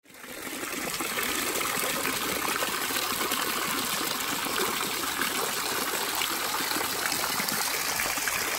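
A thin waterfall pouring off a rock ledge and splashing steadily into a hot spring pool, fading in over the first second.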